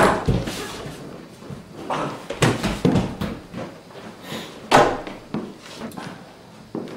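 A few scattered knocks and thuds from movement on a theatre stage, the loudest about five seconds in.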